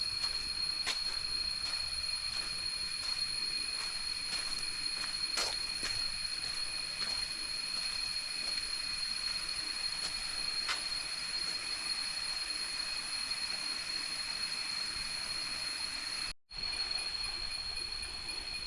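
Steady high-pitched drone of a jungle insect chorus, several shrill tones held without a break, with a few faint clicks. The sound cuts out for a split second near the end.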